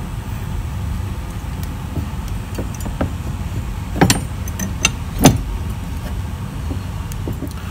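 A few short knocks as the stainless steel bars holding the rusty vise are set back down on the plastic electrolysis tub; the two loudest come about four and five seconds in. A steady low hum runs underneath.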